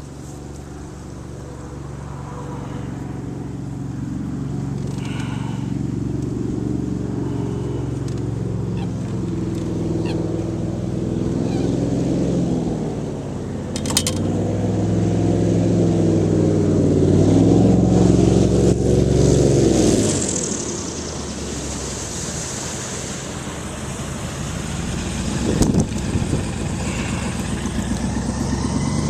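An airboat's engine and propeller passing, a steady pitched drone that grows louder for about twenty seconds, its pitch dipping and rising, then drops away sharply.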